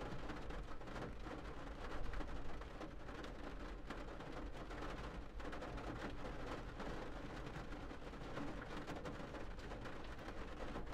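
Faint steady background noise with a low hum and no speech, like room tone; a slightly louder patch comes about two seconds in.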